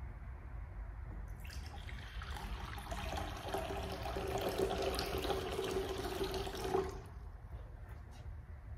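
Water poured from a glass pitcher into a baptismal font, splashing into the basin for about five seconds, starting about a second and a half in and stopping near the end.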